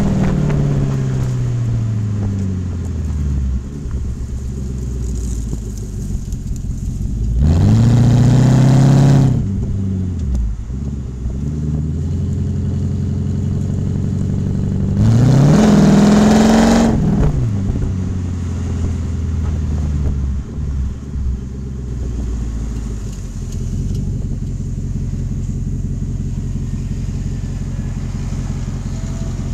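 Porsche 928 S4's 5.0-litre V8 through a stainless steel sports exhaust, dropping back to a deep, steady idle. It is revved up sharply and let fall twice, then idles on.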